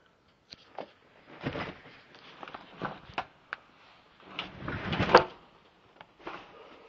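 A door being forced open against piled clutter, with scattered knocks and rustling of junk, then a longer scraping push about four and a half seconds in, loudest just after five seconds.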